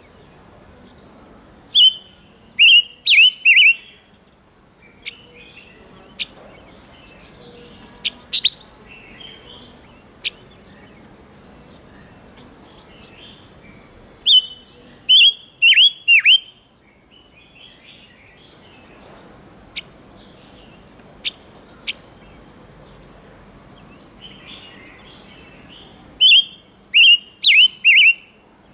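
A five-coloured bird (Vietnamese chim ngũ sắc) calling: three bursts of four or five sharp, falling chirps, about twelve seconds apart, with softer chattering and single ticks between.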